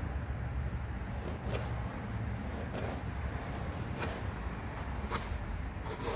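Hand sanding: sandpaper scrubbing back and forth over a decal on the Isuzu Amigo's painted body panel, a rough scratchy rubbing with a few sharper strokes. A steady low hum runs underneath.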